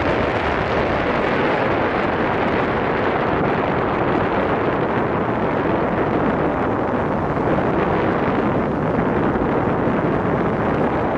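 Steady rush of airflow over the microphone of a paraglider in flight, an even, unbroken wind noise.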